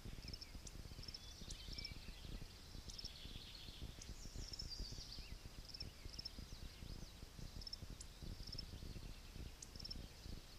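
Small birds chirping, with short high notes repeated every second or so and a busier burst of song about three to five seconds in, over a steady low rumble of wind.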